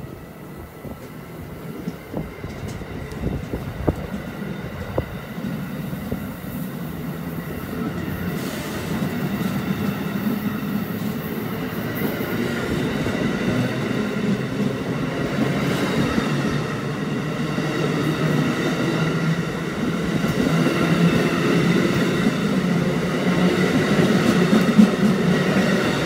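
Amtrak Northeast Regional passenger train of Amfleet cars rolling past on the rails, its wheel and rail noise growing steadily louder, with faint steady tones above the rumble and a few clicks in the first seconds.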